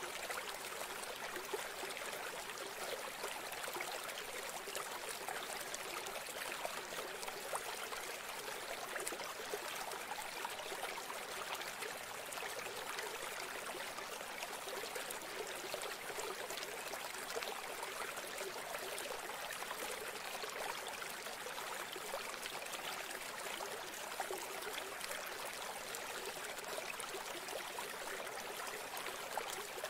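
Steady sound of running water, an even trickling rush that does not change throughout.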